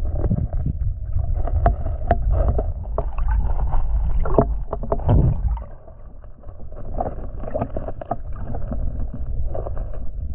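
Muffled underwater sound of river water on the camera's microphone during a free dive: a low rumble with scattered clicks and knocks and a few short bubbling gurgles. It drops quieter for a second or two just past the middle, then returns.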